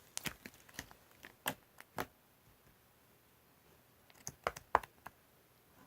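Light, irregular clicks and taps in two short runs: one in the first two seconds, another about four to five seconds in.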